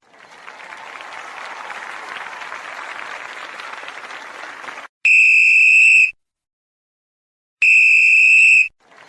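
Applause for about five seconds, then two loud, steady, high electronic beeps of about a second each, separated by a silent gap.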